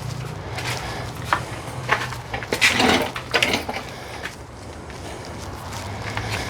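A few short metal clanks and scrapes from heavy parts being shifted into place, loudest about three seconds in, over a steady low hum.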